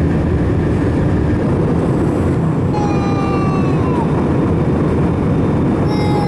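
Steady, loud low rumble of a moving vehicle heard from inside. Around the middle a faint high tone slides down in pitch.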